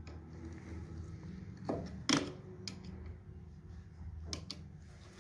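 Several sharp clicks and knocks from a contactor's cover being fitted on, the loudest about two seconds in with a short ring after it, then a quick pair near the end, over a steady low hum.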